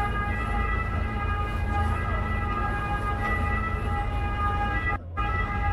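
Motorboat engine running steadily under way: a low rumble with a steady high whine riding over it. The sound cuts out for a moment about five seconds in.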